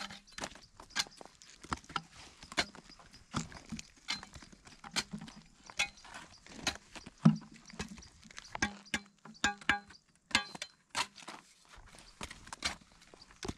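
Spade digging into hard, dry cracked mud, its blade striking the ground in a steady series of sharp knocks about every 0.7 seconds.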